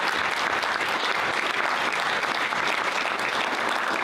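Audience applauding, steady clapping from many hands.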